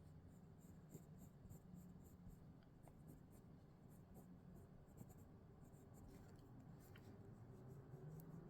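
Faint, quick strokes of a coloured pencil scratching on paper while shading in brown, several strokes a second.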